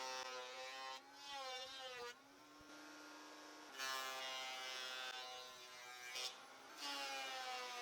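Electric thickness planer running with a steady whine. The pitch sags and wavers about a second in and stays lower for a couple of seconds as boards feed through, then returns.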